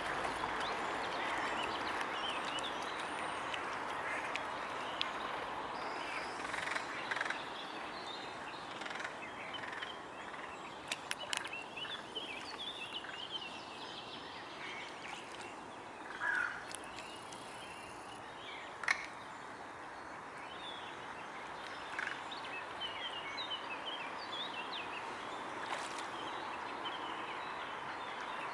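Waterfowl calling: scattered short, high calls and soft quacking sounds over a steady background hiss, with a few sharp clicks.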